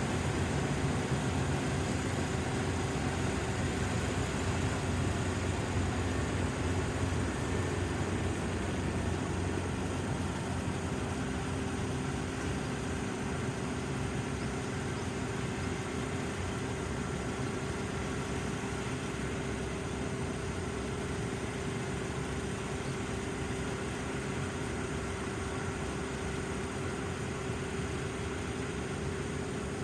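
Dynamax 470 combine harvester running steadily, a continuous engine and machinery hum with a steady tone that becomes clearer about ten seconds in.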